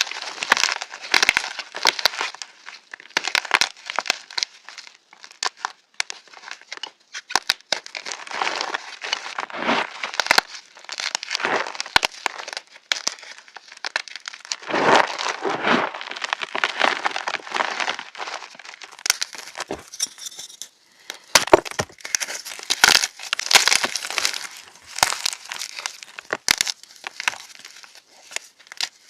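Pebbles of reformed gym chalk being crushed, giving a crunchy run of irregular crackles and crumbles that come in dense clusters with short gaps between.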